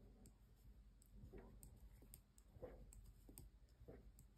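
Faint, irregular clicks of knitting needles tapping together as stitches are worked, against near silence.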